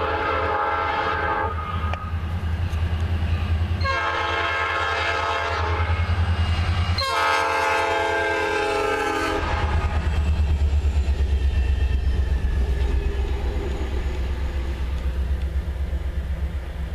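Norfolk Southern four-unit locomotive consist led by GP40-2 No. 3023 sounding its air horn in three blasts. The first blast cuts off about a second and a half in, the second runs a couple of seconds, and the last is the longest at over two seconds. Under the horn, and after it, the diesel locomotives rumble past close by, with an even rhythmic beat from about ten seconds in.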